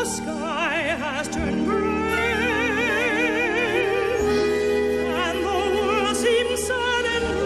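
Operatic singing with wide vibrato and long held notes, over a steady instrumental accompaniment.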